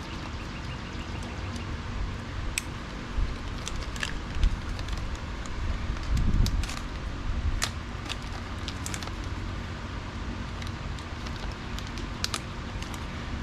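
Scattered clicks, ticks and light knocks of hands working a drive belt over a snowblower's pulleys, with a duller thump about six seconds in, over a steady low hum.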